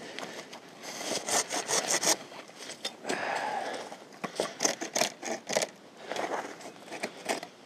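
Curved pruning handsaw sawing into a small apple branch, in several short runs of quick rasping strokes.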